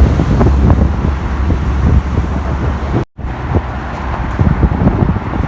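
Wind buffeting the microphone as a steady low rumble, with scattered small knocks and taps. The sound cuts out briefly about three seconds in.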